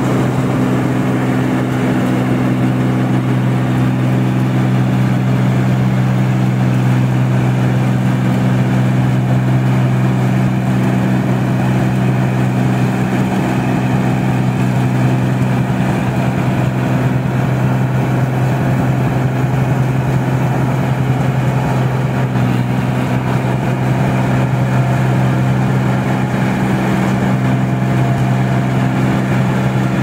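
New Holland crawler combine harvester cutting rice: its engine and threshing machinery run at a steady, constant pitch.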